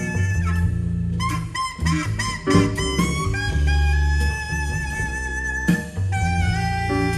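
Jazz played back through a Gryphon high-end stereo system: saxophone lines over double bass and drums.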